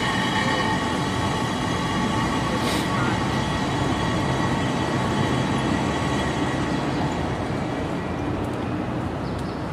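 Angels Flight funicular railcar running on its steep track: a steady rumble of wheels on rail with a layered mechanical whine, easing a little near the end.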